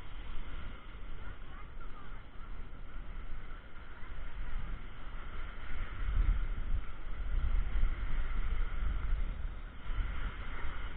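Surf and wind heard muffled through a waterproof camera housing: a steady noise with a low rumble that swells about six seconds in and eases near the end.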